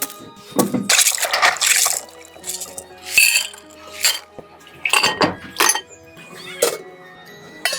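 Background music with intermittent splashes and dribbles of water in between, as if something is being rinsed or water is being poured.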